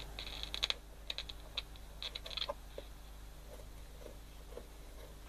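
Mid-1970s transistor radio under repair giving short bursts of rapid clicking and crackling for about the first two and a half seconds. A faint steady low hum sits underneath.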